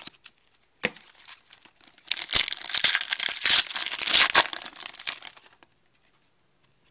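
Foil wrapper of an Upper Deck hockey card pack being torn open and crinkled by hand: a sharp crackle about a second in, then a dense run of crinkling and tearing that stops about five and a half seconds in.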